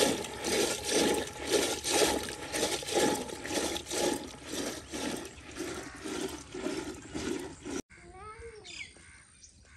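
Rhythmic sloshing of liquid, in strokes about twice a second, that stops abruptly about eight seconds in. Afterwards a few faint calls rise and fall in pitch.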